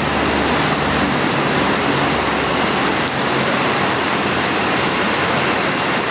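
Leonardo AW109 twin-turbine helicopter running down after engine shutdown, its main rotor still turning, with the low drone weakening about a second in, under the steady hiss of heavy rain.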